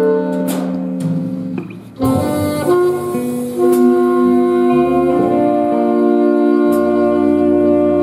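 High school jazz big band playing with an alto saxophone soloist over sustained horn chords. The band thins out just before two seconds in and comes back in with a sharp ensemble hit.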